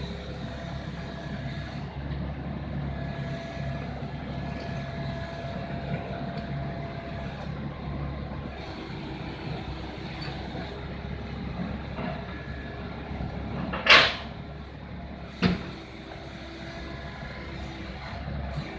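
A diesel engine running steadily at low revs. About fourteen seconds in comes a short, loud hiss, and about a second and a half later a brief sharp knock.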